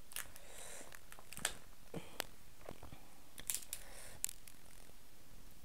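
Cooked king crab shell being broken apart by hand: a handful of sharp cracks and snaps of the shell, with short tearing and crinkling as meat is pulled from the body. The loudest cracks come about a second and a half in and near four seconds.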